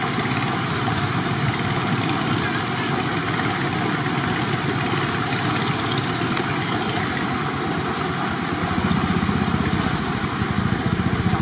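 A motor engine running steadily, its rapid firing pulses getting a little louder and deeper about nine seconds in.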